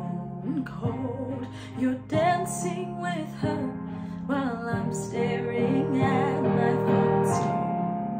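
A woman singing a slow, sad pop ballad in a wavering voice over held instrumental chords.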